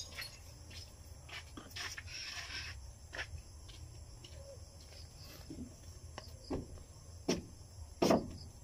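Light handling sounds of a paper sticker label being peeled from its backing and a plastic bottle being handled: scattered small clicks and crackles, a short rustle about two seconds in, and a couple of sharper knocks near the end.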